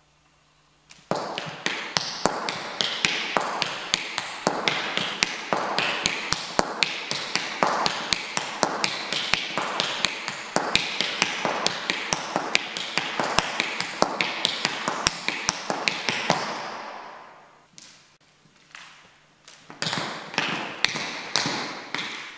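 Cornish scoot (step) dancing: metal-tipped dance shoes strike a wooden floor in a fast, rhythmic run of steps. The run starts about a second in, trails off for a couple of seconds near the end, then starts again.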